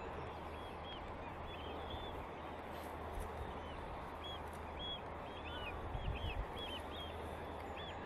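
A huge wheeling flock of waders: a steady, dense wash of sound from the massed birds, with short clear call notes repeated many times above it. A brief low rumble comes just past the middle.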